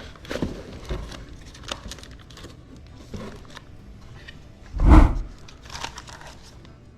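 Crinkling and rustling of wrapping and items being handled while unpacking a box, with scattered light clicks and one louder bump about five seconds in.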